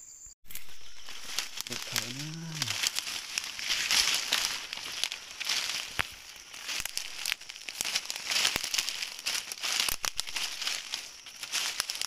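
Dense crackling and rustling with many small sharp snaps, like dry material being crushed or handled. About two seconds in, a brief low voice sound rises and falls in pitch.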